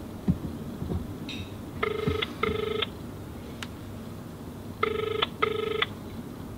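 Ringback tone of an outgoing phone call, heard through a smartphone's loudspeaker. It is the double-ring pattern, two short rings close together, heard twice about three seconds apart: the call is ringing and has not yet been answered.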